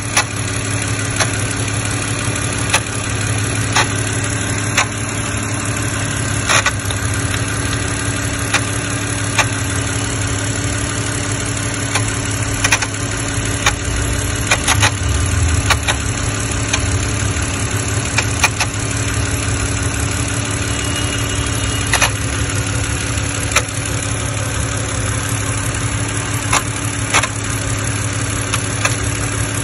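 BMW engine idling steadily, with irregular sharp clicks over the running, in an engine that has a noise of unknown origin.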